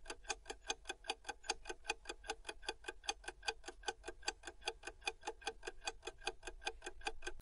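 Clock-ticking sound effect for a quiz countdown timer: fast, even ticking, about five ticks a second.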